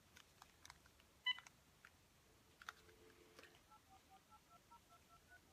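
Faint button clicks on a cordless phone handset and a short key beep, then a steady low tone for about a second, then a quick run of touch-tone (DTMF) dialing beeps, about five a second, as a phone number is dialed.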